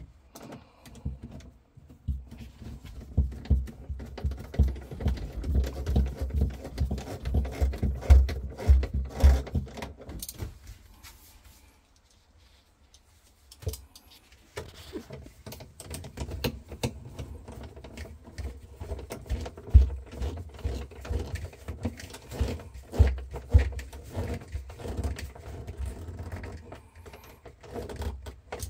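Screws being driven back in during refrigerator reassembly: a run of rapid clicks and low knocks that stops for a few seconds about a third of the way in, then resumes.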